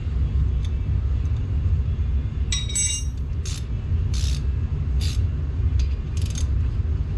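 A wrench clinks and clicks against the brake caliper's 14 mm slider-pin bolts as they are broken loose: a handful of short metallic knocks, the first with a brief ring. A steady low rumble runs underneath.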